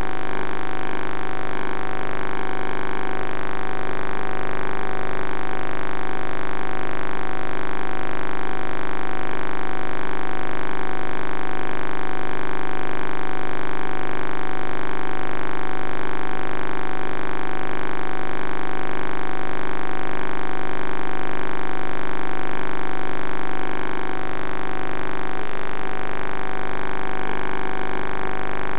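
Steady electrical hum and buzz with a faint regular pulsing, the kind of electronic interference a well inspection camera's recorder picks up on its audio track.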